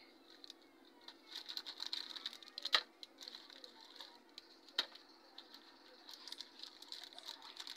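Wrapped candies dropped one at a time into a plastic tray: two sharp taps, about a third of the way in and again past halfway, with wrapper crinkling in between.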